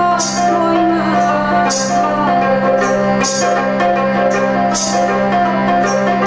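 A woman sings a Char-Chapori folk song over a steady harmonium drone, accompanied by a plucked string instrument. A short jingling percussion stroke sounds about every second and a half.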